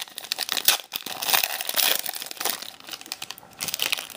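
Plastic packaging crinkling and rustling as trading cards and their wrapping are handled, a run of small crackles that eases off briefly near the end.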